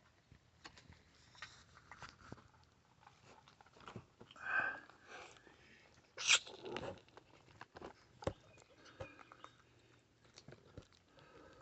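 Tiny kittens eating, many small scattered clicks of chewing and crunching food, with a couple of brief louder noises about four and a half and six and a half seconds in.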